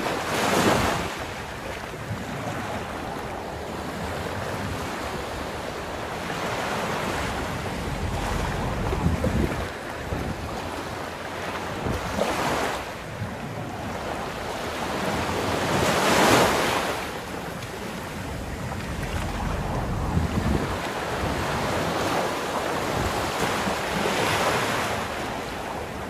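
Sea surf breaking on a sandy beach, a steady wash that swells every few seconds as waves come in, loudest about sixteen seconds in. Wind rumbles on the microphone underneath.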